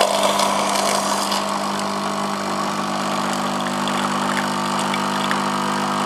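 Nescafé Red Mug coffee machine running with a steady hum as it dispenses hot water into the mug to make a cup of coffee.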